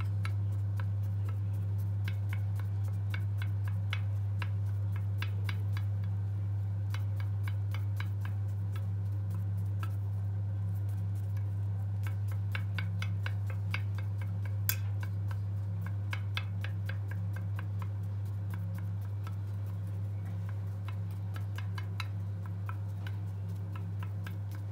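Wooden toothpick pricking holes in a baked chocolate sponge in a glass baking dish: many quick, irregular light ticks. A steady low hum runs underneath.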